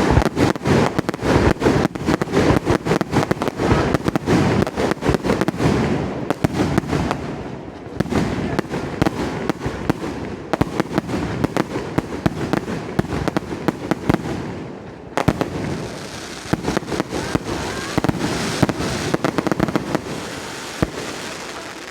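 Fireworks display going off: a dense run of rapid crackling pops and bangs over the first six seconds or so, then sparser crackles and pops through the rest.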